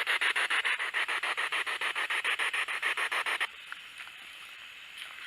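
Spirit box sweeping through radio stations, giving a fast, even chop of static bursts, about nine a second; it is switched off and cuts out suddenly about three and a half seconds in, leaving faint hiss.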